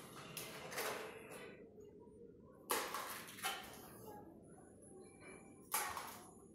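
Plastic ring-toss rings clacking against the pegs and base of a toy ring-toss set on the floor: a few separate sharp knocks, each dying away quickly.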